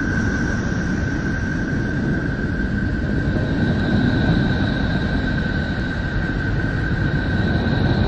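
Space sonification presented as the sound of Neptune: a steady low rumble and hiss with a thin high whistle held throughout, and a second, higher whistle coming in about halfway.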